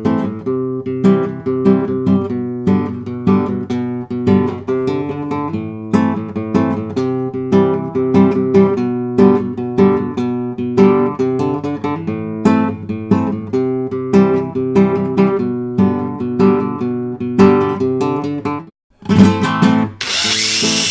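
Acoustic guitar music, plucked notes in a steady rhythm, that breaks off for a moment near the end. Just before the end a high whining power tool starts under the music.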